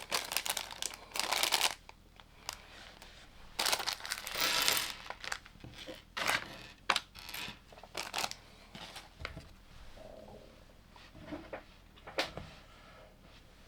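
Plastic LEGO pieces being handled: two rustling, crinkling bursts in the first few seconds, then scattered sharp plastic clicks that grow sparser toward the end.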